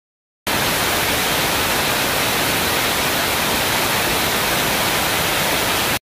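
Steady static hiss, even across all pitches and unchanging in level, starting suddenly about half a second in and cutting off abruptly at the end.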